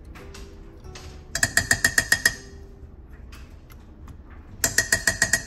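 A metal spoon rapped quickly against the rim of a slow cooker's stoneware crock, knocking thick canned soup off it: two runs of about eight ringing taps each, about three seconds apart.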